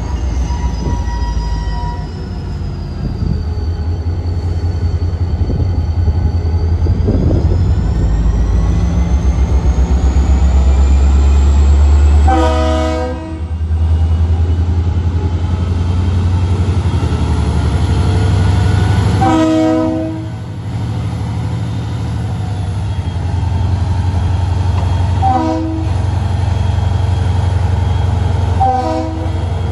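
Diesel locomotive engine running with a loud, steady low rumble as the locomotive creeps toward a grade crossing. Its horn sounds four blasts in the grade-crossing signal: two longer blasts, then a short one, then a final blast near the end.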